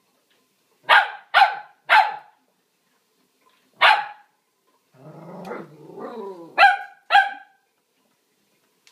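A small spaniel barking in sharp single barks: three quickly about a second in, one near four seconds, then a long wavering growl followed by two more barks. It is demand barking for a frisbee that lies out of reach on top of her crate.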